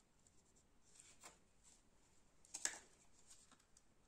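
Near silence with faint handling of laptop parts as ribbon cables are being connected: a soft scrape about a second in and one light click near the middle.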